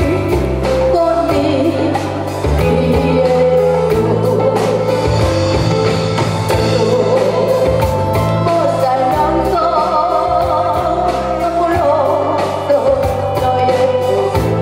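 A woman singing into a microphone, holding long notes with vibrato. An acoustic guitar plays along over a backing track with a steady bass line and drum beats.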